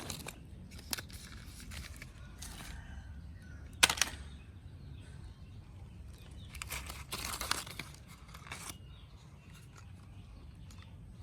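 Scattered scraping and rustling with light clicks, a sharp knock about four seconds in, and a cluster of scrapes later on, over a low steady rumble.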